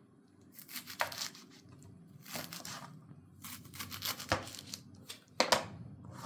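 Fresh fenugreek (methi) greens being cut up by hand: several short spells of crisp tearing and rustling of the stalks and leaves, with one sharp knock about halfway through.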